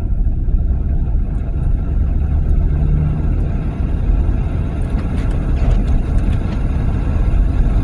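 Steady rumble of a car driving on a snowy road, heard inside the cabin, with the climate-control blower running.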